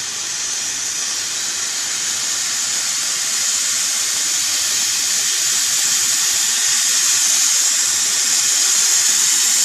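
Firework fountain burning with a steady spraying hiss that slowly grows louder.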